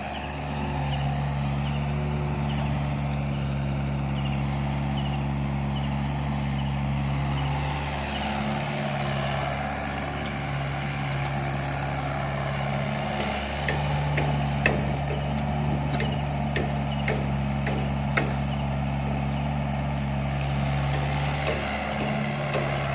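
Doosan DX55-5B mini excavator's diesel engine running steadily under load as it digs and swings soil, its note dipping briefly twice. From about halfway on, a scatter of sharp clanks and knocks comes from the working machine.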